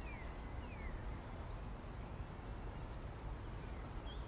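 Small birds chirping and singing in short, quick notes, many of them sliding down in pitch, over a steady low background rumble.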